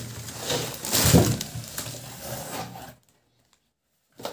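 Rustling and scraping as a cardboard shipping box and its packaging are handled, with a louder knock about a second in. The sound then cuts off suddenly to dead silence for about a second.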